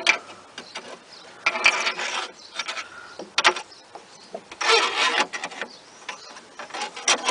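Clicking and rattling from a VW Golf Mk4 door lock mechanism being worked by hand, in four short bursts. The lock is stuck in its deadlocked safe state.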